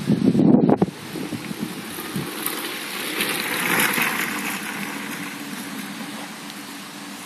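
Mountain bike's tyres rolling over loose dirt and gravel as the rider comes down past, swelling to its loudest about four seconds in and then fading. Wind buffets the microphone in the first second, and a faint steady hum runs under the later part.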